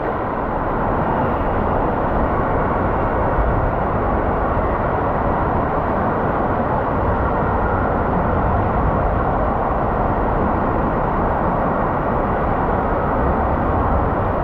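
Steady rushing of water and a raft sliding around the fibreglass bowl of a Whitewater West SuperBowl water slide as it circles the centre funnel.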